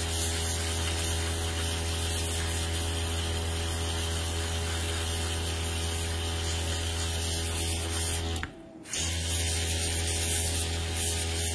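Airbrush compressor running with a steady hum under the hiss of the airbrush spraying paint onto a nail tip. The sound drops out briefly about eight and a half seconds in, then starts again.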